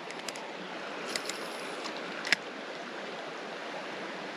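Steady water sound of a shallow, slow-flowing creek, with a few faint clicks about a second in and a sharper click a little past two seconds.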